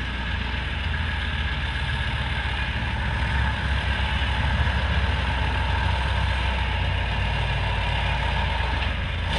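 Heavy engine of a tracked, articulated Ural-cabbed tanker running steadily with a low, even note as the vehicle crawls over a mound of earth.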